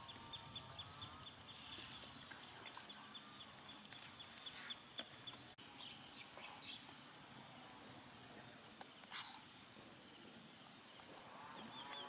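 Faint outdoor ambience with bird sounds: a high chirp repeating about five or six times a second for the first half, then a few scattered short calls and one quick rising call about nine seconds in.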